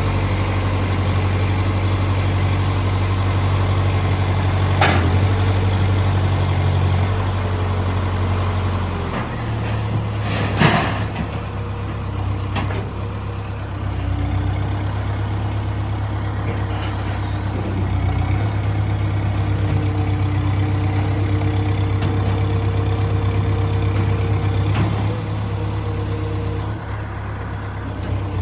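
Truck engine running steadily with a low hum whose pitch shifts about nine seconds in. There is a short sharp burst of noise about ten seconds in.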